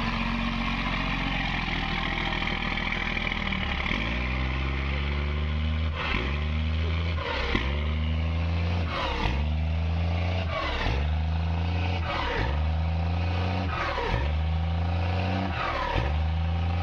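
Diesel pickup engine running, then revved hard over and over from about four seconds in, each rev climbing and falling back about every second and a half. The truck is rolling coal, pouring black smoke with each rev.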